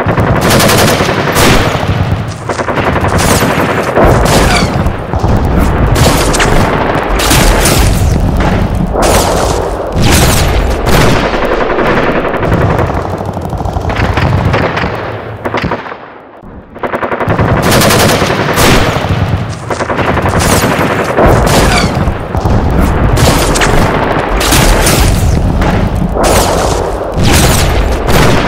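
Dense battle gunfire sound effects: rapid machine-gun fire mixed with single shots. It starts suddenly, is very loud, eases in a brief lull a little past halfway, then resumes.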